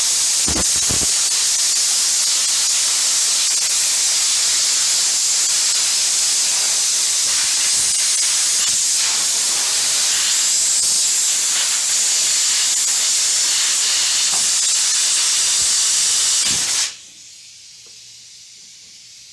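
Compressed air hissing steadily from an air nozzle, worked in under a rubber handlebar grip to slide it onto the bar. It cuts off suddenly near the end.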